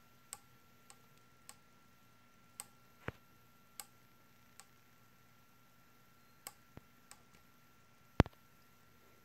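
Vortex riflescope elevation turret being turned by hand, giving single, irregularly spaced detent clicks of uneven loudness. The owner considers the turret defective because its clicks land half a click off the marks. A sharper, louder click or knock comes near the end.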